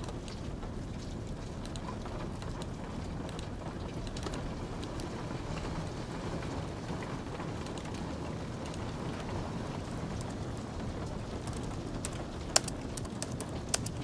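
Soft typing on a low-profile keyboard: a run of faint key clicks, with a few sharper taps near the end, over a steady bed of light rain ambience.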